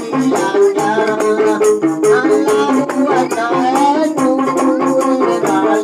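Traditional gambus music: a plucked gambus lute playing repeated low notes, hand frame drums beating a fast, even rhythm with a rattling edge, and a man singing with a wavering voice over them.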